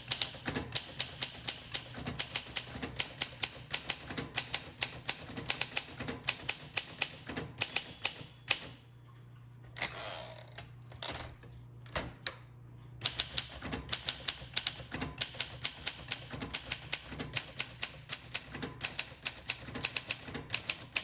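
1962 Olympia SM7 manual typewriter being typed on, its typebars striking in a quick run of several keystrokes a second. About halfway through the keystrokes pause, leaving only a short sliding sound and a few single clicks, and then the typing resumes.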